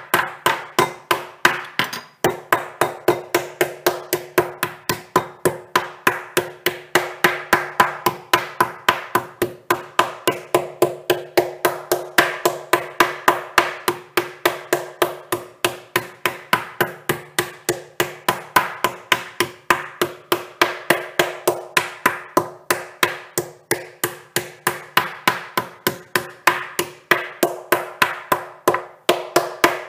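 Metal meat tenderizer mallet pounding a thin slice of beef on a wooden cutting board to flatten it, in a steady run of strikes about three a second.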